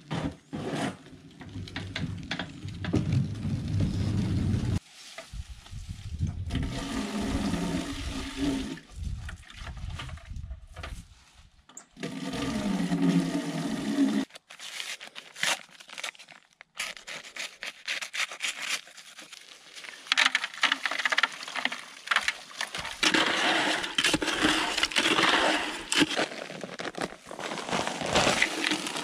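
Work sounds one after another: a push mower's wheels rolling over concrete with a bag of concrete mix on it, then water running from an outside tap into a plastic bucket, then dry concrete mix tipped from its bag into the wet bucket near the end.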